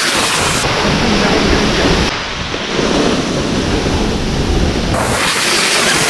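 Rushing water of the Dugdhdhara waterfall, a loud, steady noise, with an uneven low rumble of wind on the microphone over it.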